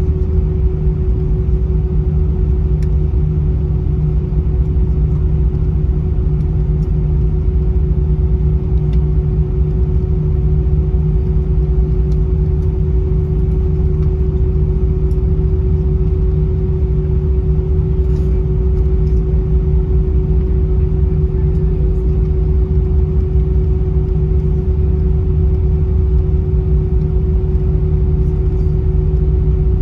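Cabin noise of an Airbus A320-232 taxiing after landing: a steady low rumble with a constant hum from its IAE V2500 engines at idle and the cabin air system.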